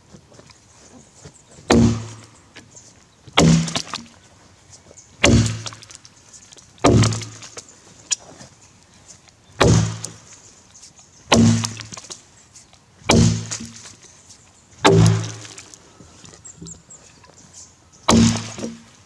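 Tassie pattern axe chopping into a green Grey Gum log while bucking it: nine heavy, evenly paced strikes about every one and a half to two seconds, each a sharp thunk with a short low ring from the log.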